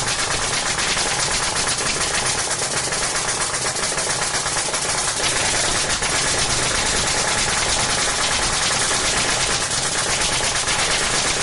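A machine running continuously, giving a rapid, even rattle of many small strikes a second without a break.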